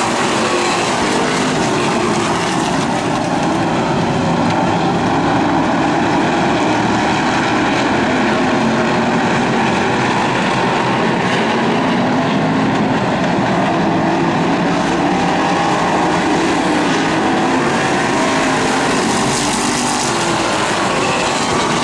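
A pack of hobby stock cars racing on a dirt oval, their engines running together in a loud, continuous mix. Several overlapping engine pitches waver up and down as the cars accelerate and lift through the turns.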